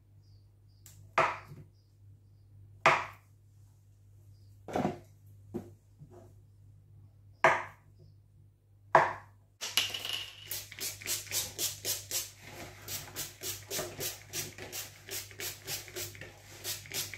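A kitchen knife cutting through pre-boiled potatoes and striking the worktop in six sharp chops, a second or two apart. About ten seconds in, a fast, even run of spritzes, about three a second, from a hand-pumped oil spray bottle coating the chips in a bowl.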